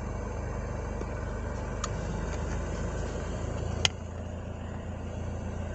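Toyota Innova Reborn's Denso AC blower motor running at low speed with the cabin filter removed: a steady hum of the fan spinning, which for this blower type is normal and not a fault. A faint click comes about two seconds in and a sharper click near four seconds, after which the hum is a little quieter.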